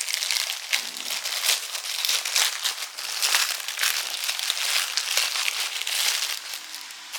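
Packaging being torn open and crumpled by hand: a dense, crackly crinkling that goes on for several seconds and fades near the end.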